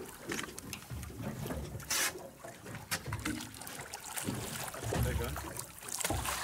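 Water splashing and sloshing at a boat's side as a hooked fish thrashes at the surface and is gaffed, with wind on the microphone; a sharp louder burst about two seconds in.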